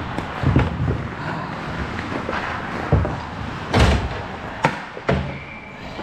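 Knocks and thumps of hockey players moving over the boards and bench of an ice rink, with skates and sticks hitting wood and plastic. The loudest bang comes just before four seconds in, and a sharp crack follows about a second later.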